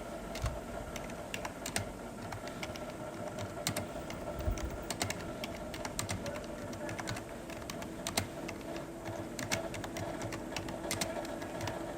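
Irregular light clicks and taps from handling the plastic packaging of a bag of dried tea, over a steady background hum.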